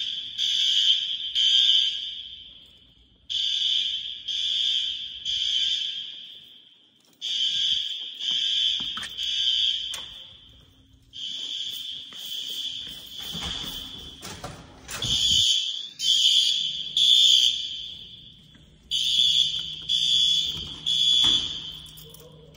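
Building fire alarm horns sounding the temporal-three evacuation pattern: three high-pitched blasts, a pause, then three again, repeating about every four seconds, really loud. A brief low rumble comes midway.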